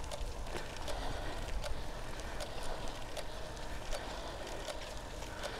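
Wind rumbling on the microphone of a bicycle riding uphill, with light irregular clicks about twice a second.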